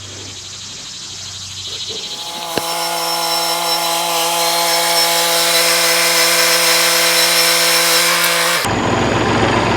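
A motor running at a steady pitch with many overtones, starting suddenly about two and a half seconds in and cutting off abruptly near the end.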